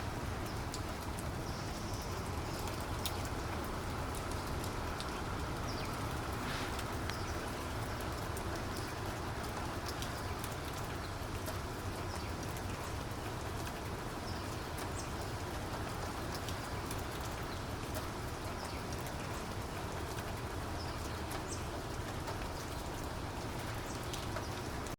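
Steady rain: an even hiss of falling rain with many sharp individual raindrop ticks scattered through it.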